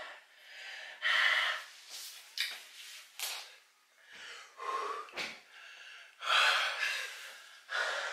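A person gasping and breathing hard through the mouth, a string of sharp breaths about one a second, in reaction to the burn of an extremely hot sauce on a chicken wing.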